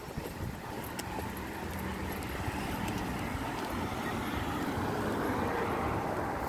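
Road traffic: a vehicle's tyre and road noise building up steadily as it approaches, with a few light footsteps near the start.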